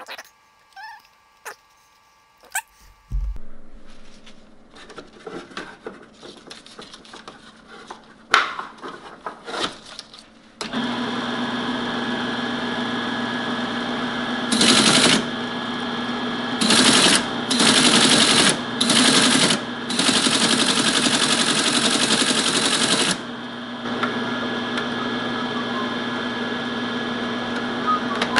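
Teletype ASR 33 being reassembled and started: handling clicks and knocks at first, then about ten seconds in its motor starts with a steady hum. The paper tape punch then clatters rapidly in five bursts, the longest about three seconds, before the motor hums on alone.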